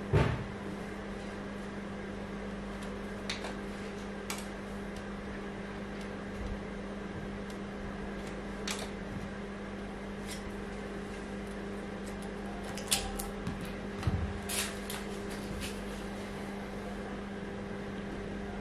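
HP Z800 workstation running with a steady low hum and fan whir. A few light clicks and knocks from the metal case being handled: the loudest right at the start, and a cluster about two-thirds through.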